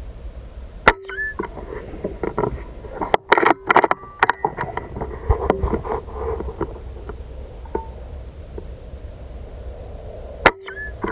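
Two shots from a pre-charged pneumatic air rifle, each a sharp crack, one about a second in and one near the end, over a steady low outdoor rumble. A cluster of sharp clicks and knocks comes about three to four seconds in.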